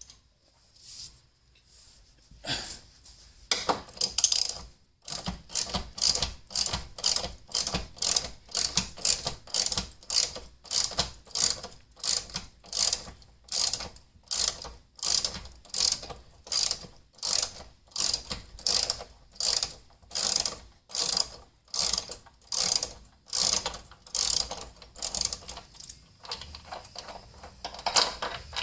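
Hand ratchet wrench clicking in steady back-and-forth strokes, about two a second, backing out a Jeep TJ body mount bolt with a 16 mm socket.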